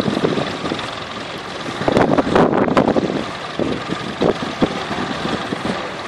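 Vintage tractor engine running steadily as it pulls a plough through stubble, with wind gusting on the microphone about two seconds in.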